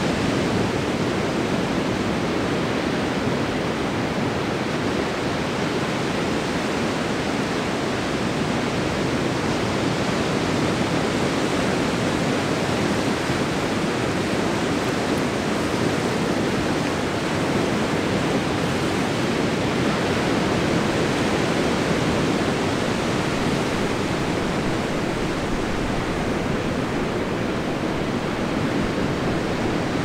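Ocean surf, waves breaking and washing up the beach: a steady rush of water noise with no single crash standing out.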